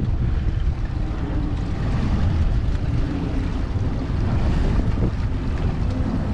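Wind buffeting the microphone on a boat at sea, a steady low rumble with the wash of the ocean beneath it.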